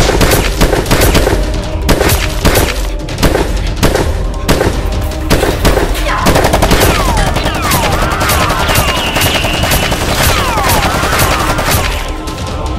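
Machine-gun fire sound effects in rapid bursts laid over background music, the shots densest in the first half. In the second half, falling and rising whistling sounds join in between the shots.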